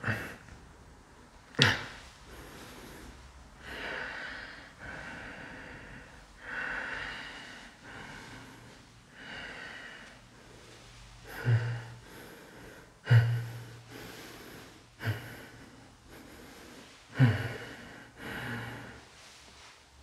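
A person breathing heavily close to the microphone, with slower noisy breaths in between and several sharp, sudden gasping intakes of breath.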